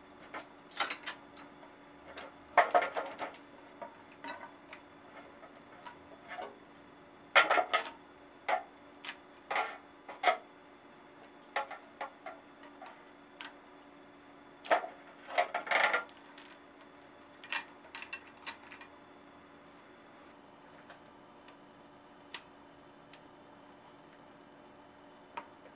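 Irregular metallic clicks and rattles of a bicycle chain and rear derailleur being handled, loudest in three clusters in the first two-thirds, then only a few light clicks.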